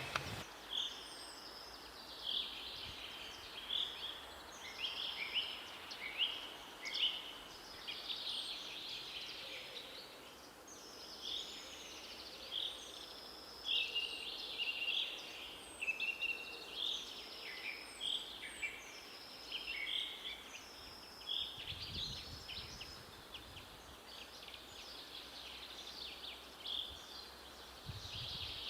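Several birds singing and calling over steady forest background noise, with short whistled and chirping phrases overlapping almost continuously.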